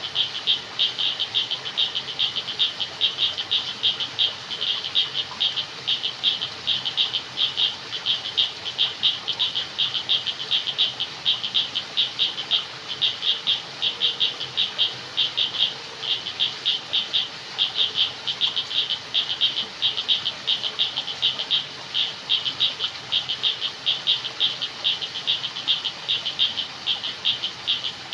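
Frogs calling in a continuous chorus of rapid, high-pitched repeated notes over a faint background hiss.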